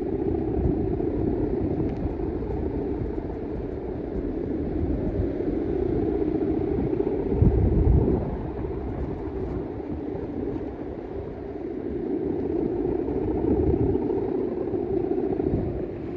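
Balinese bebean kite's bow hummer (guangan) droning steadily in the wind overhead, swelling and fading as the kite moves. Wind buffets the microphone with a loud low gust about eight seconds in.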